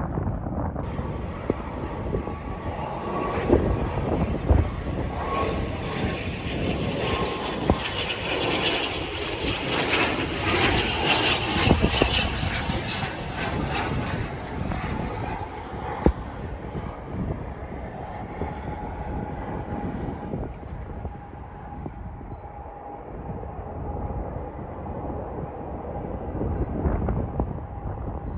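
Aircraft engine noise from an SAS ATR 72 twin-turboprop passing low on approach. The propeller drone builds to its loudest around the middle, then eases to a steadier drone with a held tone.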